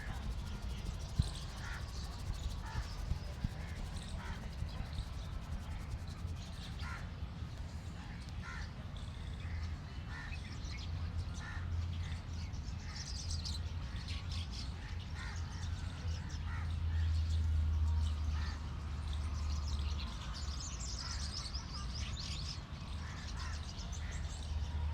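Birds calling: repeated short, harsh calls, with higher chirping around the middle and again near the end, over a steady low rumble.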